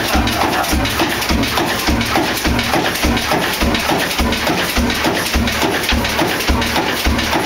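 40hp Blackstone spring-injection oil engine running at a slow, steady speed, with a regular low beat about twice a second over a clatter of machinery.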